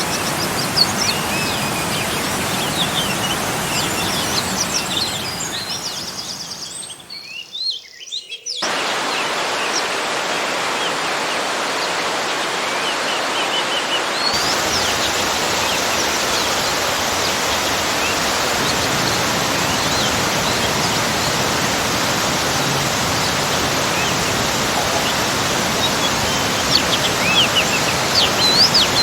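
Steady rushing of a small garden waterfall, with birds chirping over it, most busily in the first few seconds and again near the end. About seven seconds in, the sound fades out briefly, then the water resumes.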